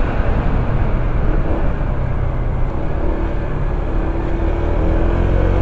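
Honda ADV160 scooter's single-cylinder engine pulling steadily under load as it starts a hill climb, a continuous drone mixed with heavy wind rumble on the rider's microphone.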